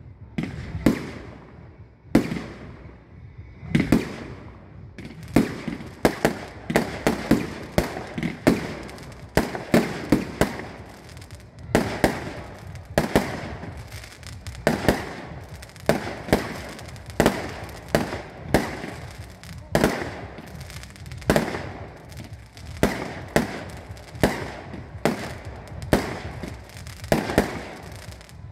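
Fireworks display: aerial shells bursting in a long series of sharp bangs, each with a short echoing tail. A few spaced bangs at first, then a fast, uneven run of one or two a second.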